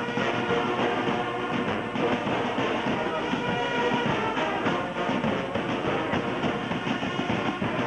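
Music at a steady level.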